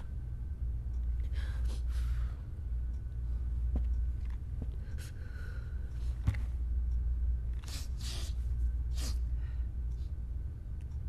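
A steady low rumble with a few short breaths and gasps scattered through it, and a single sharp click about six seconds in.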